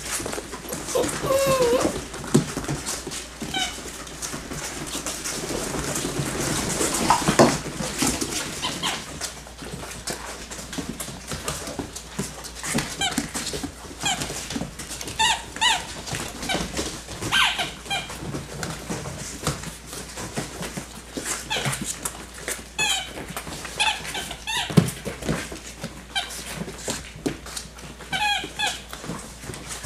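Six-week-old Labrador Retriever puppies playing: repeated short, high-pitched yips and whines in little clusters, over scuffling and clicking of paws on a hard floor.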